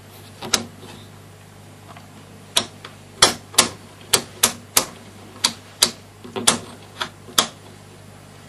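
Rotary selector switch of an AVO VCM 163 valve tester being clicked through its positions, about a dozen sharp clicks at uneven spacing, over a faint low hum. This is the shorts test on a hot Mullard EL34, with the switch stepped from position to position while the meter is watched.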